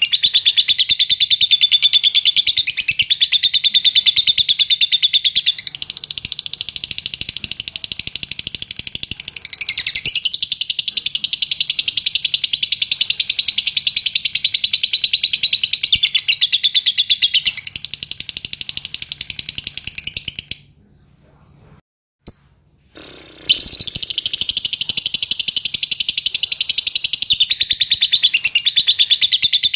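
Fischer's lovebird singing a long, very rapid, high-pitched chattering song. It breaks off for about three seconds two-thirds of the way through, then starts again just as loud.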